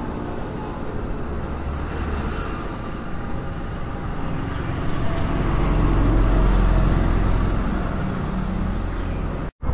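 Motor vehicle engine running amid road traffic noise, with a steady low hum that grows louder for a few seconds past the middle. The sound cuts out abruptly for a moment just before the end.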